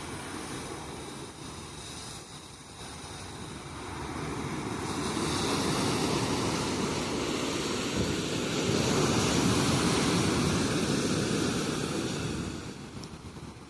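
Sea waves breaking on a beach: a surge of surf builds about four seconds in, runs loud for several seconds and washes out near the end.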